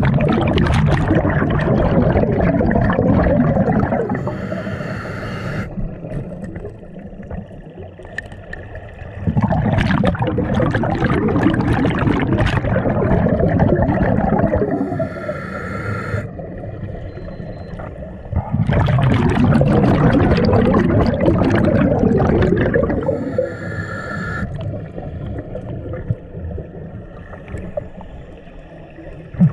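Scuba diver breathing through a regulator underwater, three breaths: each a long gurgling rush of exhaled bubbles followed by a short hissing inhale, repeating about every nine seconds.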